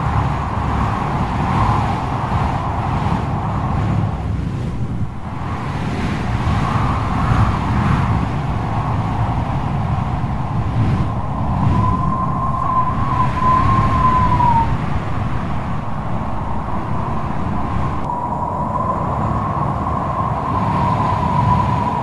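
Strong wind blowing over heavy sea surf: a loud, steady low rumble with a thin, wavering howl that comes in about halfway through and again near the end.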